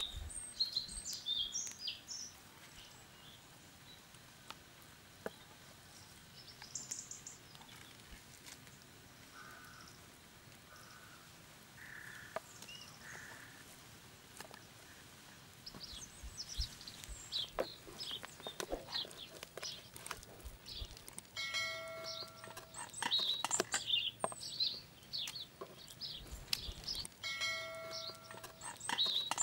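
Woodland songbirds chirping, with short high calls coming and going throughout. Twice in the latter half a held, even-pitched call about a second long stands out. Scattered light knocks of a knife on a wooden cutting board come in around the middle.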